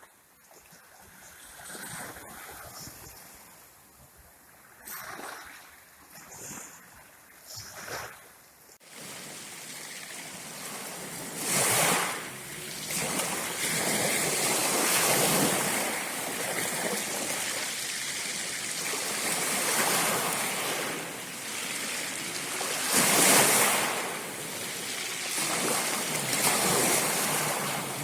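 Rushing water of a waterfall: faint at first, then a loud, steady rush from about nine seconds in that swells twice.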